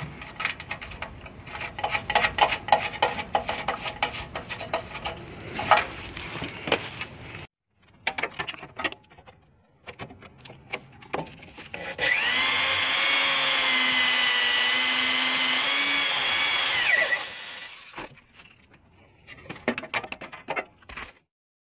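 Clicks and rattles of metal parts and locking pliers being handled, then a cordless drill spinning up and running steadily for about five seconds as it bores a hole through a clamped aluminum bracket, winding down at the end, followed by more handling clicks.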